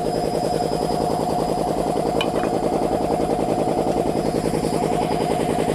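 3090 piston air compressor running steadily on test, with a fast, even pulsing from its strokes. A brief tick about two seconds in.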